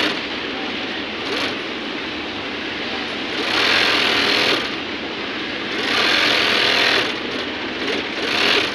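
Industrial sewing machine with a roller puller stitching trouser fabric in three short runs of about a second each, starting about three and a half, six and eight seconds in. Steady background noise runs between them.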